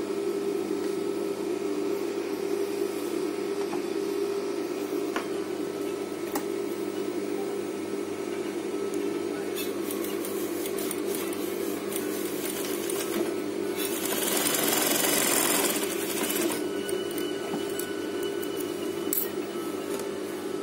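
Industrial sewing machine running steadily as a zipper is stitched onto fabric, with light clicks and a louder rushing stretch lasting a couple of seconds about two-thirds of the way through.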